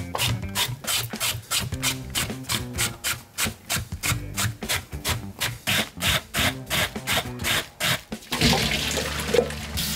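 Quick, rhythmic rubbing or scraping strokes, about three or four a second. About eight seconds in they stop, and a water tap is turned on and runs steadily.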